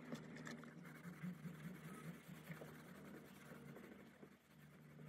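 Near silence: faint handling and scratching noises with a low hum underneath.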